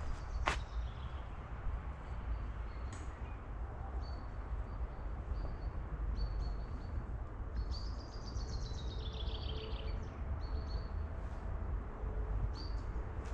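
Forest birds calling, with short high chirps recurring every second or so and one falling series of whistled notes about eight seconds in, over a steady low rumble; a sharp click sounds just after the start.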